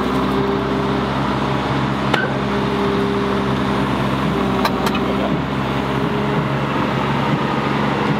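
Hydraulic excavator's diesel engine running at a steady speed while it holds the lifted tractor on its bucket, with two sharp clicks, one about two seconds in and another a little under three seconds later.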